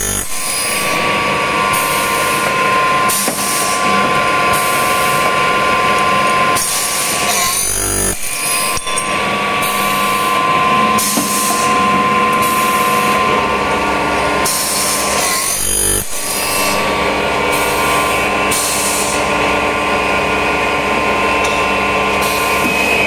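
Automated aluminium punching and cutting machine running through its cycle: a steady high-pitched motor whine, with the cutting noise starting and stopping every second or so, and two short louder strokes about eight seconds apart.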